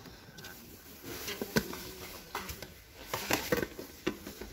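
Stacked plastic plates clicking and knocking against each other as they are lifted and set back on a shop shelf: several light, separate clicks.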